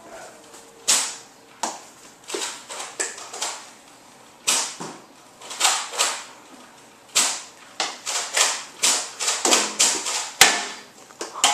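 Nerf Recon CS-6 spring-powered dart blaster being primed and fired over and over: a run of about twenty sharp clacks and puffs, coming faster toward the end.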